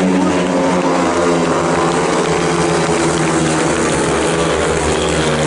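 Several speedway motorcycles racing at once, their 500 cc single-cylinder methanol-fuelled engines running at high revs in a steady, loud, blended drone.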